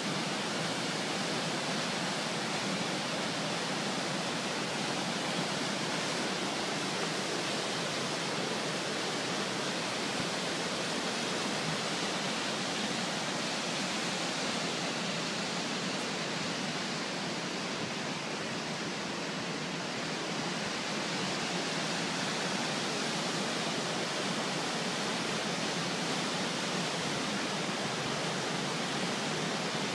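Firehole Falls on the Firehole River: whitewater pouring over a rock ledge and through rapids, a steady rushing noise that softens slightly about two-thirds of the way through.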